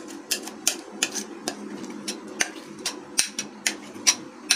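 A metal spoon clinking and scraping against a glass mixing bowl while thick lentil batter is scraped out into a metal tin: sharp, irregular taps about two or three a second, over a steady low hum.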